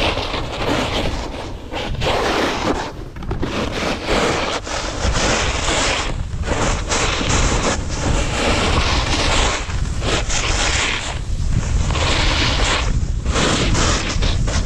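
Wind rushing over an action camera's microphone at speed, mixed with a snowboard's edges scraping and carving over groomed snow. The rushing noise is loud and swells and dips every second or two.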